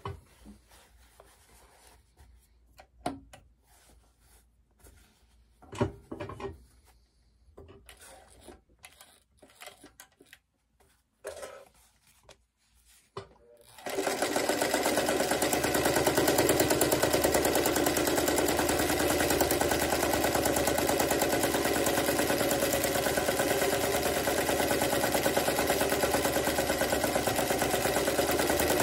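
Scattered clicks and fabric-handling noises, then about halfway through a 1934 Osann 177-1 darning machine (a Singer 177-2 type) starts up on its electric motor and runs steadily at a fast stitching speed, its needle bar chattering continuously while the fabric is darned.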